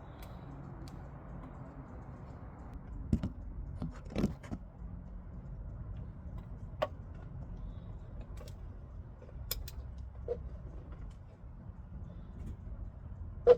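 Hand tools clinking and knocking against metal: a scatter of separate, irregular clicks and taps, the loudest about three and four seconds in and one sharp clink at the very end, over a low steady hum.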